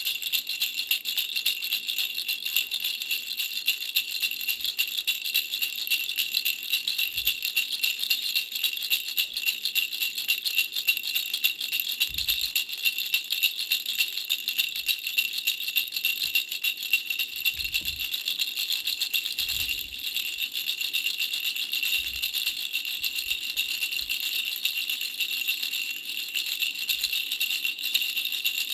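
Baby's three-flower bell rattle toy being shaken without a break: a dense, steady jingle of small high-pitched bells. A few faint low bumps come through here and there.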